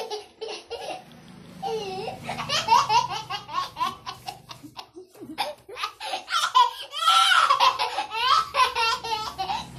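A young child laughing over and over in quick runs of laughter, with a short pause about halfway through.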